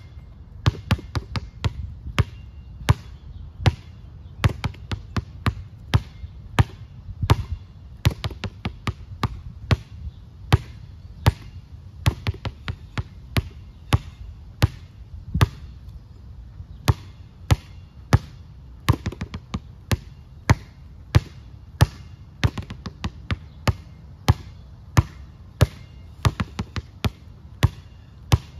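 A basketball being pounded hard on an asphalt court: a continuous series of sharp bounces, about two to three a second, some much louder than others as the dribble switches between high and low.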